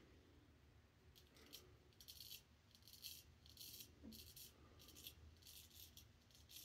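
Straight razor, a River Razor 14 honed on a black Arkansas stone, scraping through stubble on the upper lip: a run of faint, short, scratchy strokes, several in quick succession.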